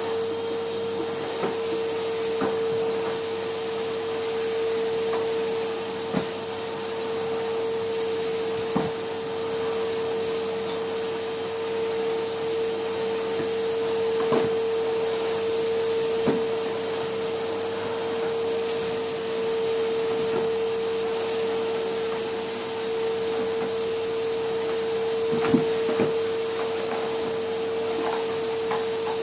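Numatic Henry cylinder vacuum cleaner running steadily at one unchanging pitch, with a few short knocks scattered through.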